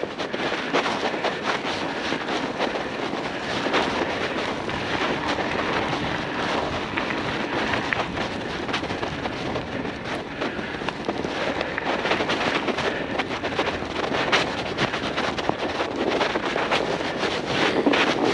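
Bicycle rolling over fresh snow: a steady rushing noise from the tyres and wind on the microphone, dotted with many small crackles and rattles.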